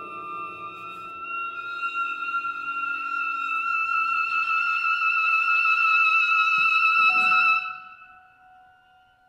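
Contemporary classical chamber quintet (flute, clarinet, piano, violin, cello) playing one high held note that grows steadily louder for about seven seconds and then stops abruptly, while the lower instruments fade out in the first few seconds. A faint lower tone lingers after the cutoff.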